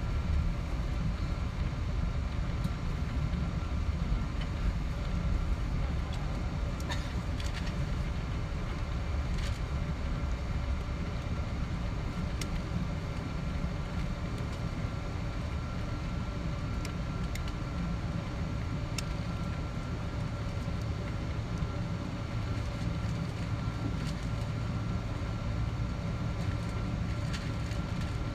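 Steady cabin noise of a Boeing 777-200ER taxiing: the engines humming at low thrust over a deep rumble from the rolling landing gear, with a few faint ticks.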